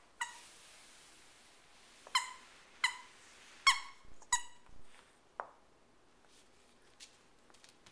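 Squeaker in a plush rabbit dog toy squeaking as a puppy chews it: about five short, sharp squeaks, one right at the start and the rest bunched between about two and four and a half seconds in, followed by a brief falling squeak.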